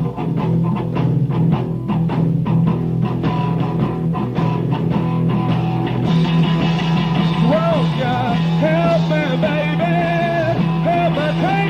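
Live rock band playing an instrumental passage: steady bass and drums with repeated hits, and a wavering lead melody with bent notes coming in about six seconds in.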